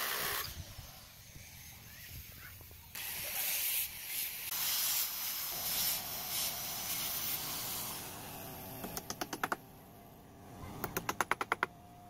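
Rustling, hissing handling noise from an angle grinder and its sanding pad being handled, then two quick runs of sharp clicks, about eight each, in the last few seconds.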